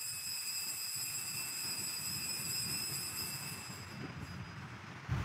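A bell struck once at the elevation of the chalice during the consecration, its high ringing tone fading away over about four seconds.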